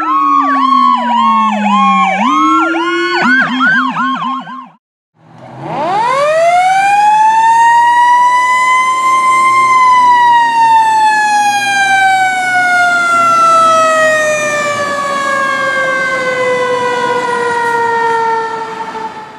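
Several fire-apparatus sirens yelping together, one tone sliding down, cut off about four and a half seconds in. After a short gap, a single siren winds up to a peak about four seconds later and then slowly coasts down in pitch, with a low engine rumble underneath for most of it.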